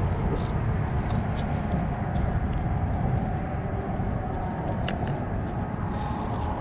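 Steady, fluttering low rumble of wind buffeting the microphone, with a few faint clicks.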